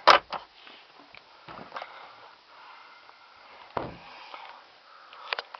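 A 2000 Dodge Caravan's plastic glove box lid snapping shut with one sharp click. It is followed by faint rustling and small knocks of handling, and a dull thump about four seconds in.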